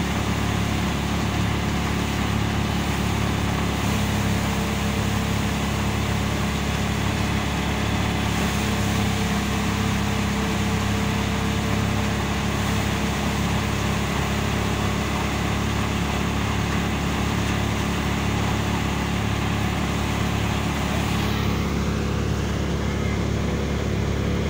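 Engine-driven threshing machine running steadily as dried mustard plants are fed into it, a constant low mechanical drone.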